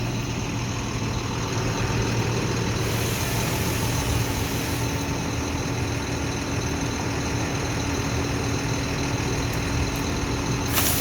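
Heavy engine of a crane truck running steadily at a constant speed. A short burst of rushing noise comes near the end.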